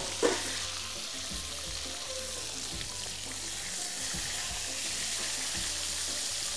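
Whole safi (rabbitfish) frying in oil in a shallow pan, giving a steady sizzle as it is turned with metal tongs. There is one sharp knock just after the start.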